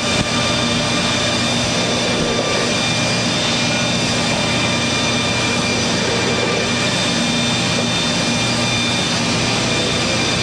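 Polishing and buffing machines used on revolver frames and barrel shrouds, running steadily: an even rushing noise over a low hum and several higher steady tones.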